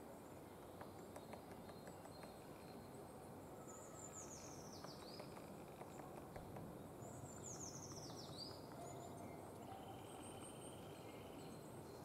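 Quiet woodland ambience in which a small songbird sings twice, each song a short high trill falling in pitch. Faint taps near the start are a great spotted woodpecker pecking at pine bark.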